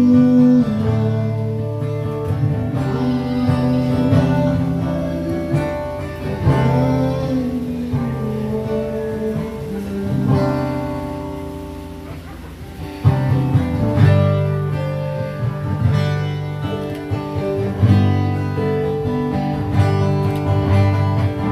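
Music led by acoustic guitar, plucked and strummed.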